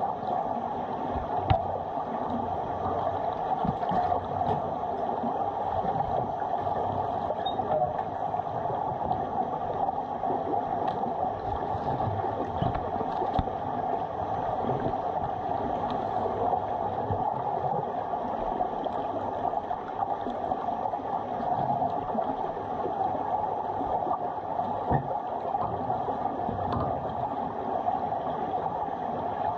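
Underwater swimming-pool ambience picked up by a camera lying on the pool floor: a steady, muffled hiss and rumble of the water with a few faint ticks.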